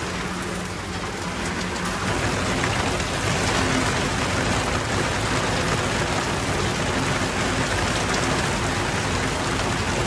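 Heavy rain falling steadily, drumming on a corrugated sheet roof.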